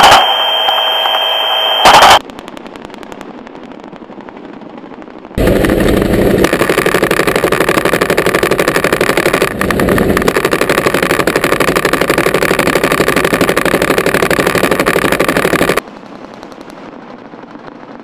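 AH-1 Cobra attack helicopter's 20mm cannon firing a long, very rapid burst from about five seconds in until about sixteen seconds, over the helicopter's engine and rotor noise. The helicopter's engine and rotor run more quietly before and after the firing. The first two seconds are a loud noise with a steady high tone.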